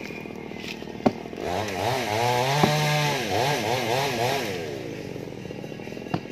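A chainsaw running, its pitch rising and falling again and again as it is revved while cutting, with three sharp axe blows on wood: about a second in, near the middle, and near the end.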